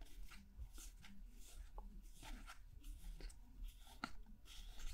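Faint rustling and irregular soft ticks of baseball trading cards being flipped through by hand, the card edges sliding over one another.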